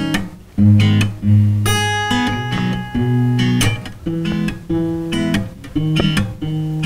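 Acoustic guitar, strummed chords played in a steady rhythm, the chord changing every second or so, with no singing.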